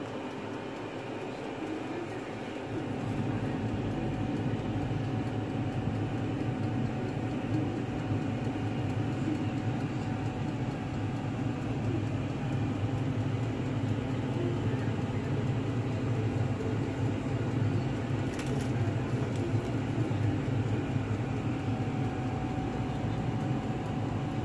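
Steady low mechanical drone, growing louder about three seconds in.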